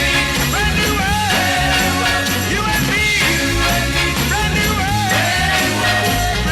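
Up-tempo band music with a lead melody line over a steady bass and drum beat.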